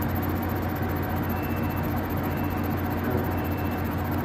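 Connecting rod machine running with a steady electric hum: a low drone with a few higher tones held over it, unchanging throughout.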